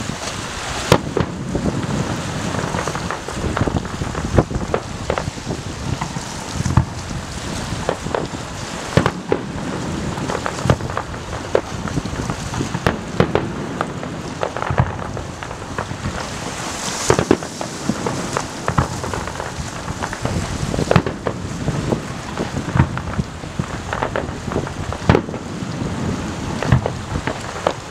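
Fireworks display going off: a dense, continuous crackle with many sharp bangs of bursting shells at irregular intervals.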